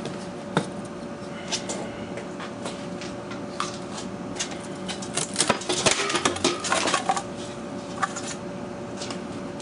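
Clear acrylic sheet and a freshly cut acrylic disc being handled: scattered light clicks and knocks of plastic, busiest about five to seven seconds in, over a faint steady hum.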